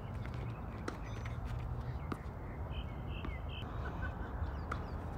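Tennis rally on a hard court: a few sharp knocks of the ball off racket strings and court, about a second apart near the start and again near the end. A few short high squeaks come in the middle, over a steady low rumble.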